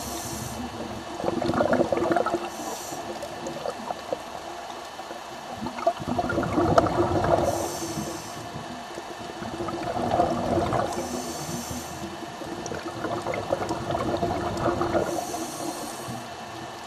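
Scuba diver breathing through a regulator underwater: a short hiss on each inhale, then a rush of exhaled bubbles, about four breaths in all, coming every four seconds or so.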